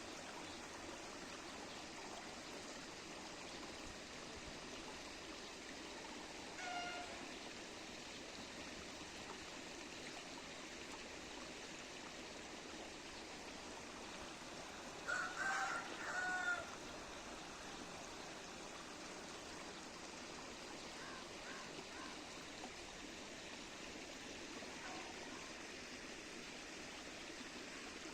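Steady rush of flowing water, with an animal calling twice: briefly about seven seconds in, then louder in a broken call lasting about a second and a half around the middle.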